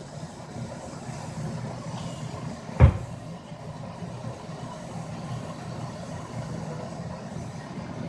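A pot of water with panela heating on the stove, a steady low rumble below the boil, with one sharp knock about three seconds in.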